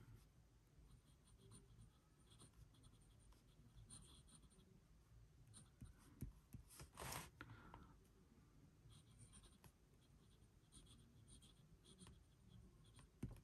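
Faint scratching of a smooth, wet No. 5 black steel fountain pen nib on notebook paper as a word is written in short strokes. One brief louder sound comes about halfway through.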